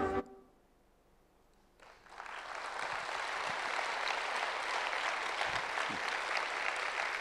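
Music cuts off right at the start, followed by about a second and a half of near silence, then audience applause starts up and holds steady.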